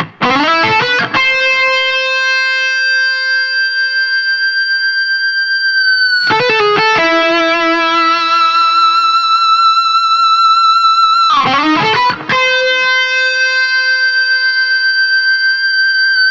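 Fernandes seven-string electric guitar with its Sustainer pickup, played through an amplifier: a quick run of picked notes, then long held notes that ring on without fading, each lasting about five seconds with a slight waver, changing note about six seconds in and again near twelve seconds. The Sustainer keeps the strings vibrating like controlled feedback, so the notes go on until the player stops them.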